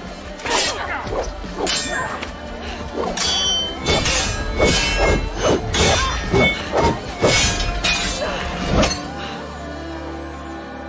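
Steel swords clashing in a fast exchange of blows, many sharp strikes, several of them ringing, over a film score. The clashes stop about nine seconds in and the music carries on.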